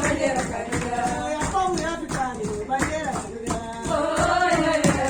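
Live music by a percussion group: a voice singing a melody over steady rhythmic percussion strokes.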